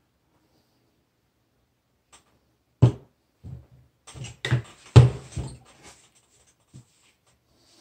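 A Browning AB3 bolt-action rifle knocking and clattering against the workbench as it is handled and set down: a sharp knock about three seconds in, a run of bumps after it with the loudest a couple of seconds later, and one light tap near the end.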